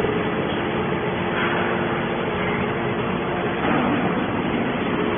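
Hydraulic scrap-metal baler running, a steady machine noise with a low hum underneath.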